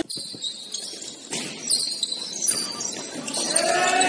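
Basketball game sounds on a sports-hall court: short high-pitched sneaker squeaks on the floor, then players' voices calling out near the end.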